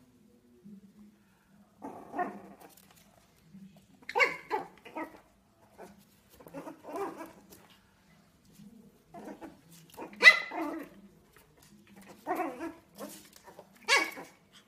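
Yorkshire terrier puppy barking in short yaps, singly and in quick clusters, about eight bursts in all; the loudest comes about ten seconds in. The puppy is playing with a ferret hidden inside a pillow.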